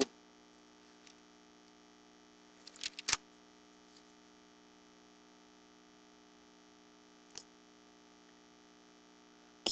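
Steady electrical hum, with a short cluster of clicks and rustling about three seconds in and a single click near the end.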